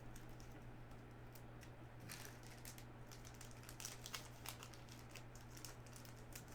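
Faint, scattered soft clicks and rustles of trading cards being handled and flipped through.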